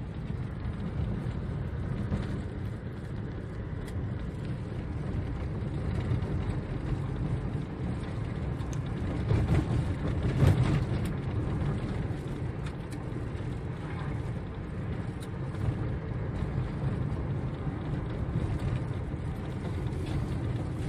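Car driving on a rural road, heard from inside the cabin: a steady low rumble of engine and tyre noise, a little louder about halfway through, with a few faint knocks.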